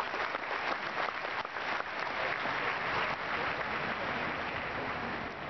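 Huge crowd applauding inside a vast indoor arena: a dense, even wash of clapping that tapers off gradually over the last couple of seconds.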